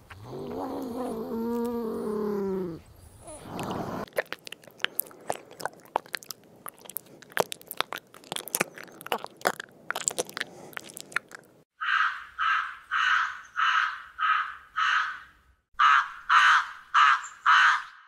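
A beaver's whining call: one drawn-out cry that rises and then falls in pitch, lasting about three seconds. Next a land snail eating an apple: a run of small crisp crunching clicks. Last a crow cawing, about seven harsh caws, a short pause, then five more.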